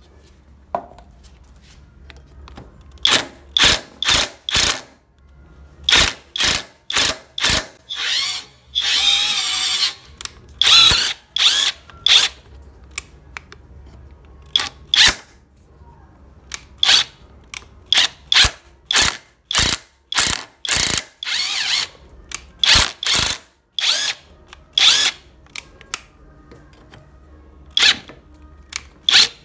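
Power drill run in dozens of short trigger bursts, with one longer run about nine seconds in, as its bit drills into the steel locking flange nut of an angle grinder.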